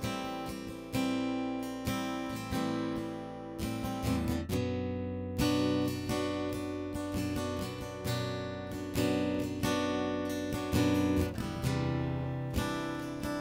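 Acoustic guitar strumming slow chords, about one a second, each left to ring and fade.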